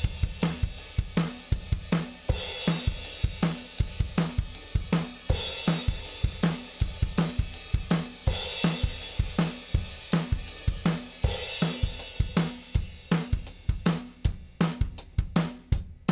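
Recorded drum kit playing a steady beat of kick, snare and hi-hat, with a cymbal wash every few seconds, heard through an Audient Black hardware compressor.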